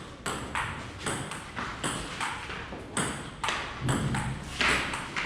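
Table tennis rally: the celluloid-type ball clicking off paddles and the table about twice a second in a steady back-and-forth.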